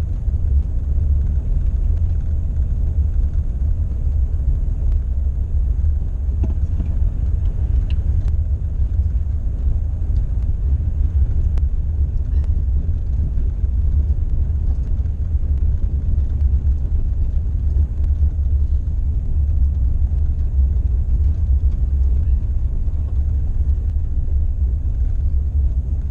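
Steady low rumble of a vehicle driving slowly on a gravel road, heard from inside the cabin: tyre and road noise with the engine underneath, and a few faint ticks.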